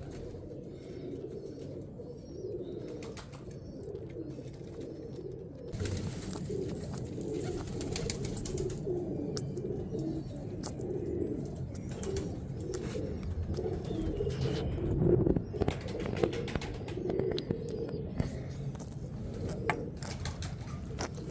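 Pigeons cooing steadily in a low, continuous murmur. Scattered sharp clicks and rustles of the hen being handled break in from time to time, most thickly about a quarter of the way in and again toward the end.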